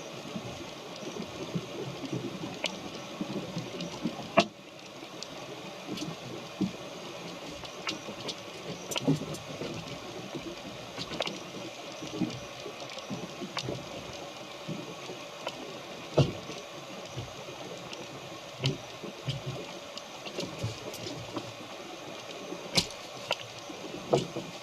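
Water splashing and gurgling against a small wooden sailboat's hull, with scattered knocks and clicks.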